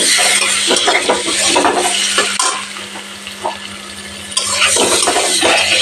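Boiled eggs frying in hot mustard oil in a kadai: the oil sizzles while a metal spatula scrapes and knocks against the pan, turning them. The stirring stops for about two seconds in the middle, leaving a quieter sizzle, then starts again.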